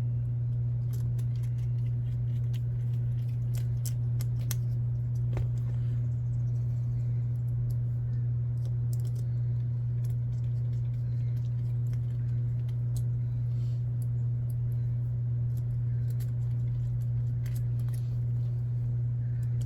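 A steady low hum throughout, with faint scattered small metal clicks and ticks from screws and a driver being handled on a plastic-and-metal RC beadlock wheel.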